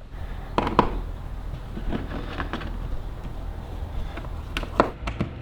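Scattered knocks and clunks of tools and mounting hardware being handled, a few sharp ones near the start and near the end, over a low steady rumble.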